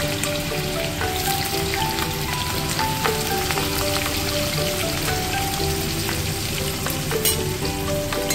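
Potato chunks frying in hot oil in an aluminium kadhai: a steady sizzle and crackle of bubbling oil. A background music melody plays over it.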